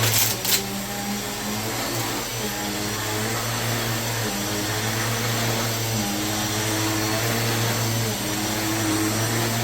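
Vacuum cleaner motor running steadily, its hum shifting up and down in pitch every second or two as it is worked back and forth. Two sharp clicks come right at the start.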